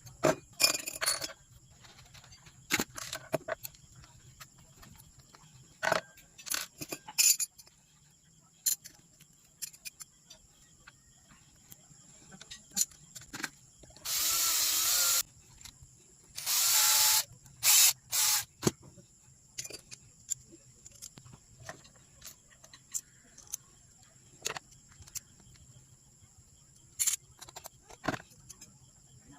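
Two short runs of a small power tool, about a second each, with scattered light clicks and knocks from handling the work in between.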